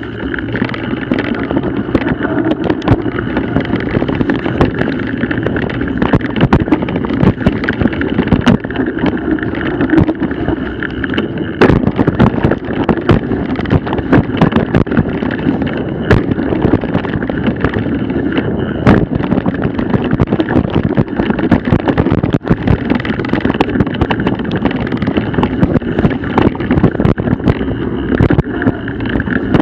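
Mountain bike riding down a rough dirt trail: continuous rumble and rattle of tyres and bike, with frequent sharp knocks from bumps and roots, and wind on the microphone.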